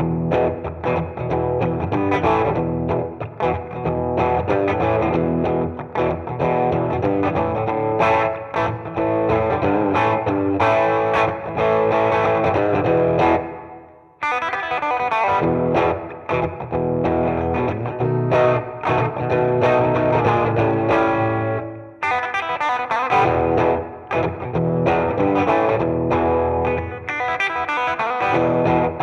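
Electric guitar riffing through a Keeley D&M Drive overdrive pedal, with a driven, distorted tone. About halfway through, a chord is left to ring and fade out before the playing picks up again, and there is another short break near the end.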